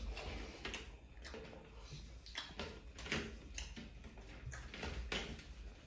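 Eating by hand: irregular soft clicks and smacks from chewing and from fingers picking food off steel platters.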